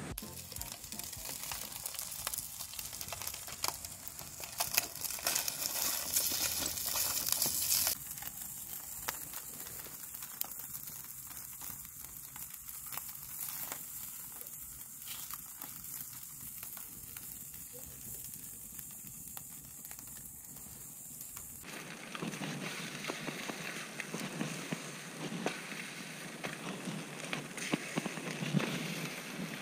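Wood fire crackling and popping in a fire pit, with scattered sharp pops over a hiss. For the first several seconds there is a louder, steadier hiss.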